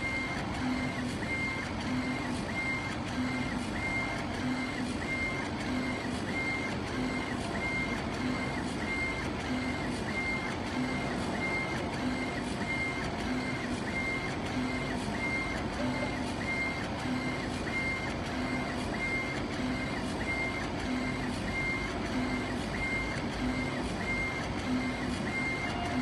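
CO2 laser engraving machine raster-engraving a picture into stone, its head sweeping back and forth over a steady hiss of fan and air. A short high tone and a lower pulse repeat in a regular rhythm, about every second and a quarter, with the passes of the head.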